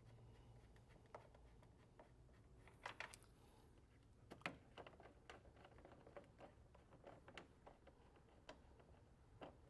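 Near silence with faint, scattered clicks and taps of hands handling parts in a tractor's open engine bay.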